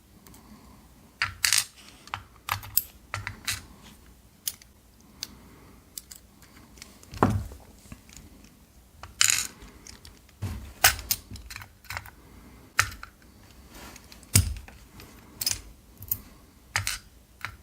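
Small metal lock parts clicking and tapping at irregular intervals, with a few louder knocks: the pins and springs of a Basi BM dimple-lock cylinder being taken out and set down during disassembly.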